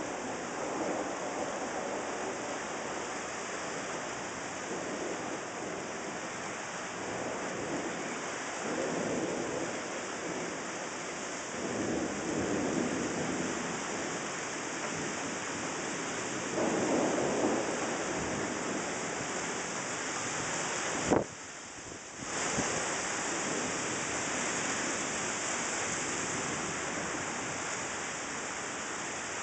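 Steady heavy rain with several swelling rumbles of thunder from lightning strikes. About two-thirds of the way through, a sharp click is followed by a second of near quiet before the rain sound returns.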